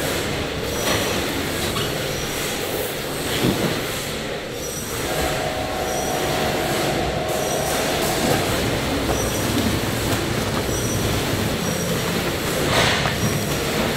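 Industrial stainless-steel food mixer running steadily, its paddle churning chopped vegetables, with a brief squeal from about five to eight seconds in.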